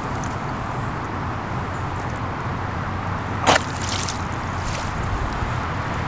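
Wet pond mud squelching and sloshing as a person kneels and moves in it, with one sharp, loud squelch about halfway through and a few softer ones just after, over a steady low background noise.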